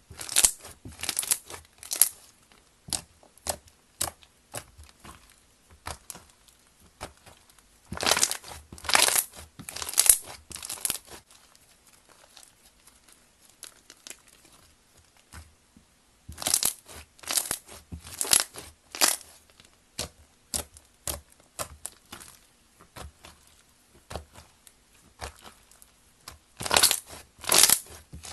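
Slime being squeezed and worked by hand close to the microphone, making short, sharp crackling noises. They come in loud clusters, about eight, sixteen and twenty-seven seconds in, with quieter ones in between.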